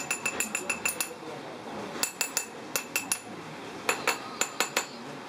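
Light metal-on-metal taps in about four quick runs of a few taps each, every tap with a short clear ring: a small metal tool rapping a metal hub pattern bedded in a sand-casting mold, the usual way of loosening a pattern from the packed sand before it is drawn out.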